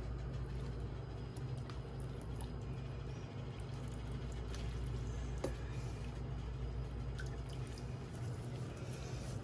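Thick curry broth poured and dripping from a metal ladle into a bowl of rice noodles, with a few light clicks of the ladle, over a steady low hum.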